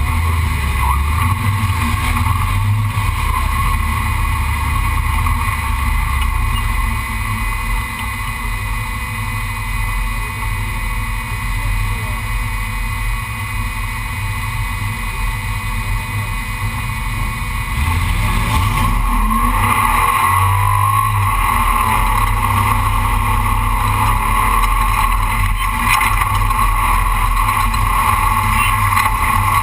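Off-road race truck's engine running steadily with drivetrain and road noise, then revving up about eighteen seconds in and running louder after that.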